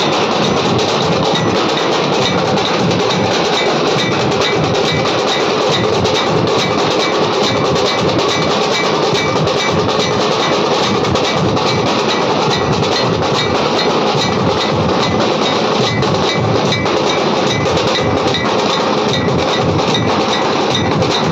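Nashik dhol band: many large barrel-shaped dhol drums beaten together with sticks in a loud, fast, dense, unbroken rhythm.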